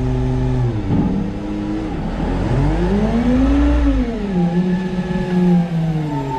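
Engine of a New Way Mamba side-loader garbage truck. A steady note drops about a second in, then the engine revs up and down in long rising and falling sweeps as the truck pulls away and changes gear.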